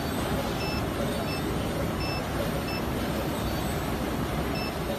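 Steady machinery and hall noise with a short, high electronic beep repeating about every 0.6 to 0.8 s, about six beeps in all, with a longer pause between the last two.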